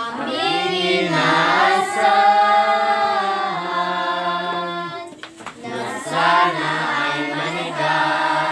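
Several voices singing a slow song together, with long held notes over a low steady accompaniment. The singing breaks off briefly about five seconds in, then resumes.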